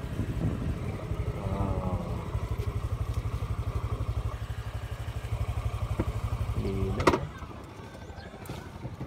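Motorcycle engine running with a fast, even beat while riding. About seven seconds in there is a short sharp sound, after which the engine goes quieter for a couple of seconds before picking up again.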